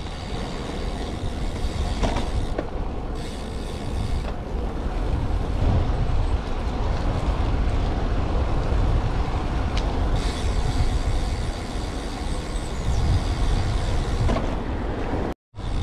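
Wind rushing and buffeting over the microphone while riding a road bicycle, with tyre noise on wet tarmac; the sound cuts out briefly near the end.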